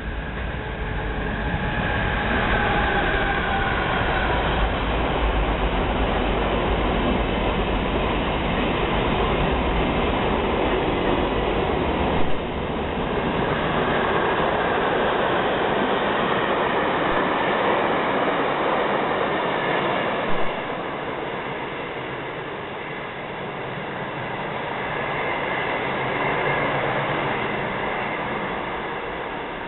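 BLS Re 465 electric locomotive and a rake of EW IV passenger coaches running through a station: a whine from the locomotive that drops in pitch as it passes, then a steady rumble of wheels on rail as the coaches go by, broken by two short knocks. The noise fades as the train draws away.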